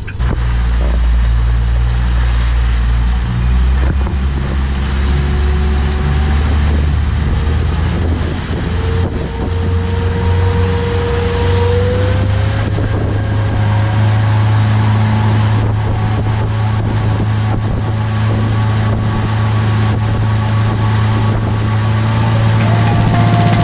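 Motorboat engine running under power, steady and loud, with a rushing noise over it; the engine note shifts up about ten to twelve seconds in.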